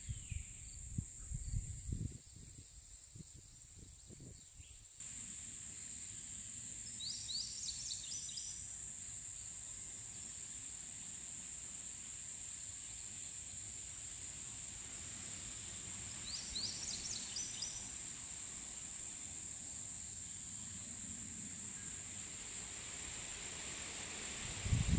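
Insects trill steadily on one high pitch. A bird sings a short phrase of quick high notes twice, about 7 and 16 seconds in. A few low knocks come in the first few seconds, and a louder knock comes at the very end.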